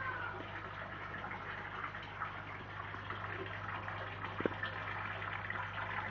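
Water trickling and bubbling in a tank of koi fry, over a steady low hum. A single short knock about four and a half seconds in.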